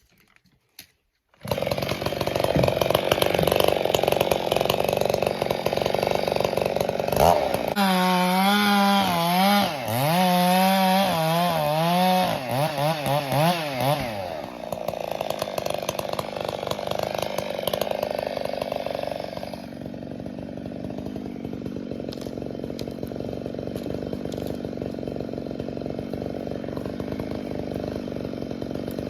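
Two-stroke chainsaw cutting through a log, coming in abruptly about a second and a half in. Midway its pitch wavers up and down as the throttle is worked, and later it runs quieter and steadier.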